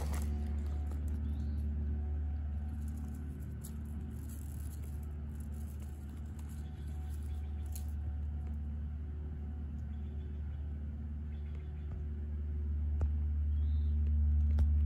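Steady low rumble with a faint steady hum, growing louder near the end, with a few faint rustles and ticks in the first few seconds.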